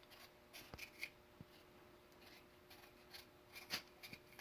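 Faint scraping strokes of a blade peeling potatoes, coming in short irregular strokes.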